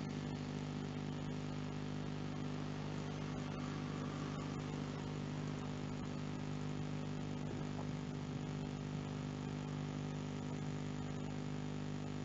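A steady low hum of background noise, made of several held tones that do not change.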